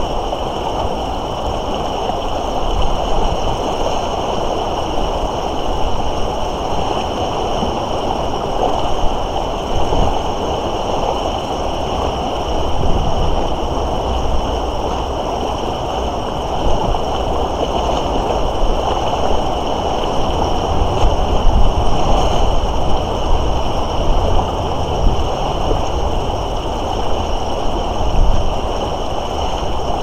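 Steady rush of the Moira River running high and fast with spring thaw, with a low rumble that swells and fades.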